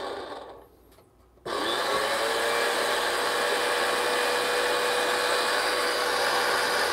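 Solis Scala Plus electric burr coffee grinder motor running with an empty hopper. It winds down and stops about half a second in, then starts again abruptly a second later and runs steadily with a steady hum.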